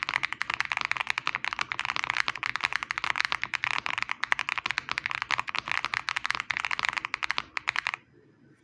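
Fast, continuous typing on a GMK67 custom mechanical keyboard fitted with hand-lubed Akko Cream Yellow linear switches and doubleshot keycaps: a dense run of keystrokes that stops near the end.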